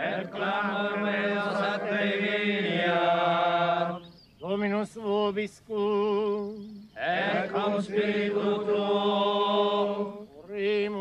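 Church chant sung with vibrato, in phrases of a few seconds broken by short pauses, as at a funeral service.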